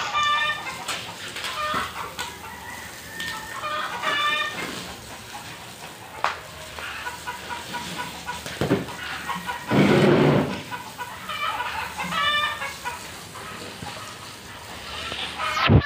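Chickens clucking in short repeated calls, with a loud, noisy burst lasting about a second near the middle.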